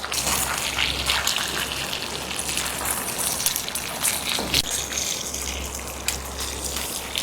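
Water running and splashing steadily, with irregular small splashes.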